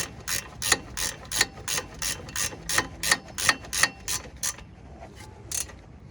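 Hand ratchet wrench clicking in quick, even strokes, about three a second, as a brake bolt is run down and snugged by feel. The clicking stops after about four and a half seconds, with one more click near the end.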